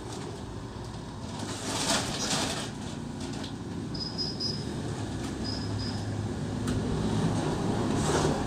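Loose grit poured from a plastic bucket into a sack, a rushing hiss, followed near the end by the bucket scraping into the pile as it scoops again. A steady low rumble of passing traffic runs underneath.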